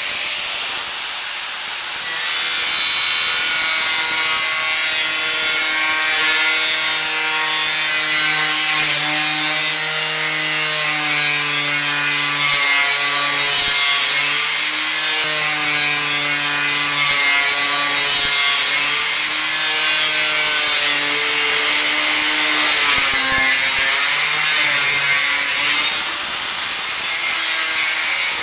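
Angle grinder with a thin steel-cutting wheel, spinning free and then cutting into a steel sheet from about two seconds in. The loud, harsh grinding hiss sits over the motor's whine, which wavers in pitch as the load on the wheel changes. Near the end the wheel leaves the cut and the grinder runs on free.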